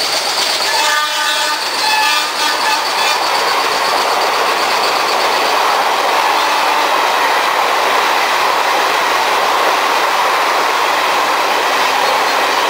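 Express passenger coaches rolling past at speed: a steady rush of steel wheels on rail. About a second in, a horn sounds for roughly two seconds.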